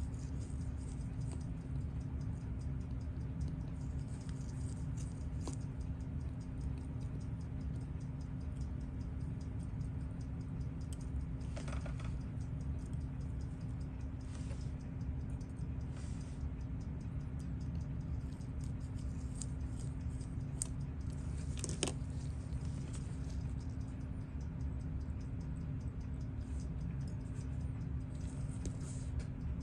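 Faint small clicks and ticks of tweezers and tiny parts being handled while a watch movement's calendar works are taken apart, the sharpest about 22 seconds in. A steady low hum runs underneath.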